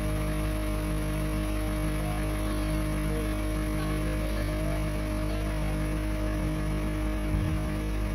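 Steady mechanical hum with a low rumble from an earthquake simulation truck's machinery while its room is shaking, holding a few fixed tones without change.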